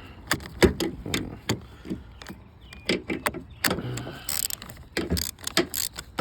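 Irregular metallic clicks and clanks of a hand wrench working loose the negative battery terminal clamp.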